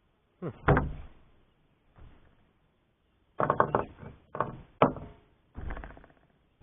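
Irregular knocks and clunks from handling a shot-up body-armour plate with bullets still lodged in it: one early knock, then a cluster of them through the middle and toward the end.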